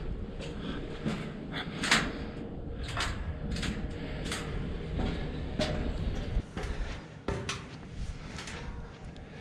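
Footsteps knocking on the stairs of a tall observation tower, about two steps a second and unevenly spaced, over a low rumble.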